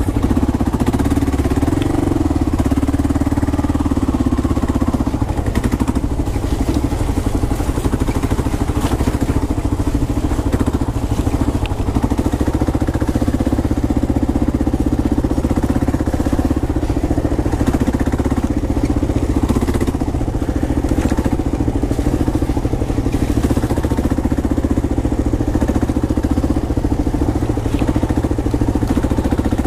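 Kawasaki KLR650's single-cylinder four-stroke engine running steadily as the motorcycle rides down a rough dirt trail, with occasional light clicks.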